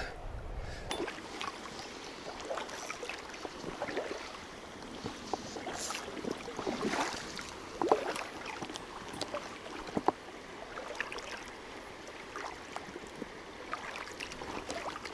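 Shallow river current flowing, with small irregular splashes and sloshing of water close by.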